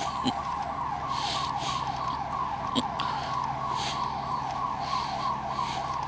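Store security alarm siren sounding without pause, a fast sweeping warble repeating several times a second. An officer takes the alarm for one that is malfunctioning and keeps turning off and on. A steady low hum runs beneath it.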